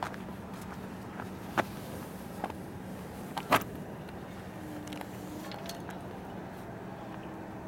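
Steady low hum of a rail depot yard, broken by a few sharp knocks, the loudest about three and a half seconds in. Faint steady tones come in during the second half.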